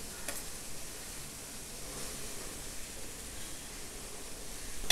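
Oil sizzling with a steady, soft hiss in a kadai as grated cauliflower is tipped in over onion and ginger, with a faint rustle. A sharp click comes near the end.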